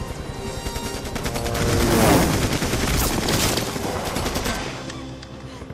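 Rapid automatic gunfire over film-score music, swelling to its loudest about two seconds in and easing off in the last second or so.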